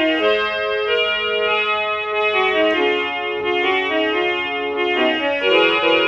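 BigFun BF-630A1 61-key toy keyboard played by hand: a tune of held electronic notes, a few sounding together, changing about every half second to a second.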